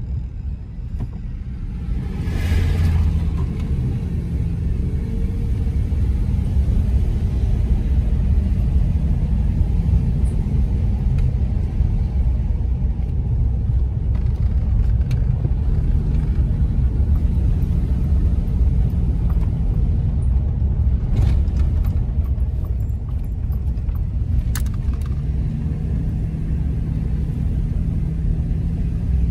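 Car cabin noise while driving: a steady low rumble of engine and tyres on the road. About two seconds in, an oncoming box truck passes with a brief rush of sound, and near the end a steady engine hum comes up.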